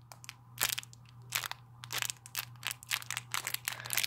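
Clear plastic wrapping of small squishy toys crinkling and crackling as it is handled close to the microphone, in irregular crackles, over a steady low hum.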